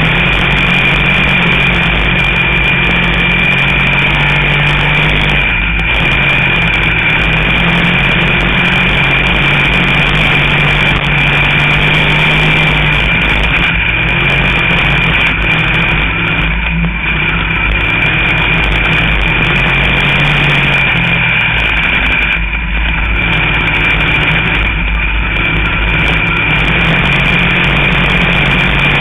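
Sportsman dirt-track race car's engine running hard under racing load, heard from inside the cockpit. The engine note shifts up and down and dips briefly a few times, with a steady high whine over it.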